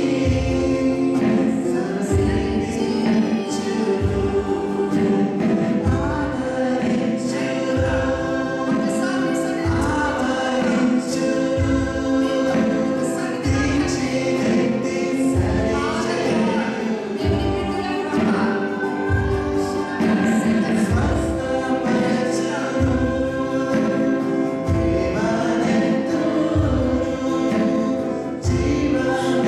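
Gospel worship music: a choir singing with band accompaniment over a steady, regular beat.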